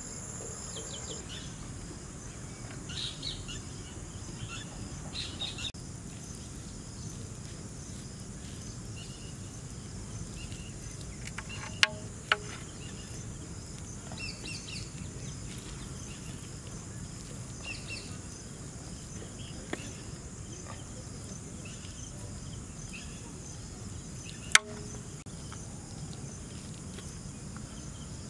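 Outdoor ambience of birds chirping and insects, with a high steady insect trill that stops about a second in. Three sharp clicks, two close together about halfway through and one near the end, from the pizza cutter knocking against the large metal pan as the pizza is sliced.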